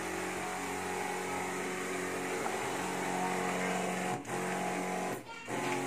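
Powered backpack disinfectant sprayer running steadily, its motor humming under the hiss of the mist from the lance. The hum dips briefly twice near the end.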